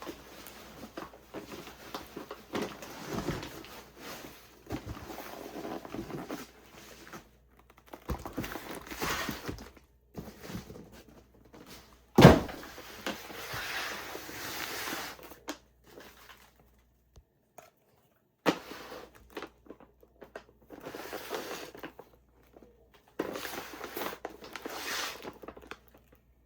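Cardboard boxes and fireworks packaging being handled: irregular rustling and crinkling with small knocks, and one loud thud about twelve seconds in.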